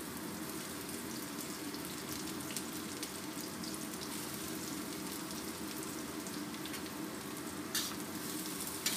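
Sliced shallots and chopped garlic sizzling in hot oil in a stainless steel wok: a steady frying hiss. Near the end, two sharp clicks as a metal spatula touches the wok to start the stir-fry.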